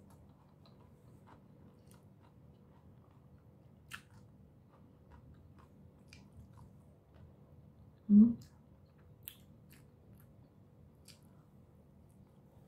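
Close-up mouth sounds of a person eating chicken tocino and rice by hand: quiet chewing with small wet clicks of lips and tongue. About eight seconds in there is one short, loud, low hum-like voiced sound from the eater.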